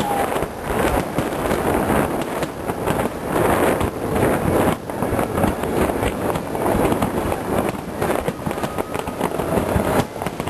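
Fireworks display: aerial shells bursting one after another in a dense run of bangs, with a brief lull about five seconds in.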